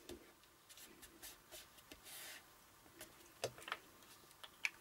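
Faint handling of paper and card: a few light taps and a brief soft rustle about two seconds in, as a die-cut paper Christmas tree is glued and pressed onto a card.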